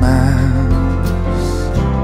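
Background music, with a held, wavering note in about the first second.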